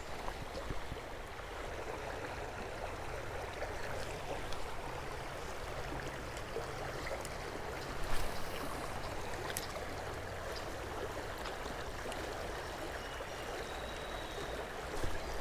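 Fast-moving creek water running in a steady, even hiss, with a brief knock about eight seconds in.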